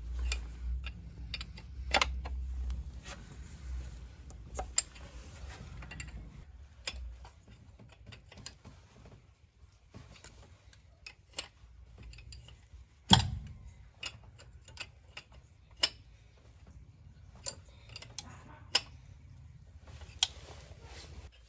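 Hand tools and small metal parts being handled: irregular clicks and light knocks, with one louder knock about thirteen seconds in. A low rumble runs underneath for the first six seconds or so.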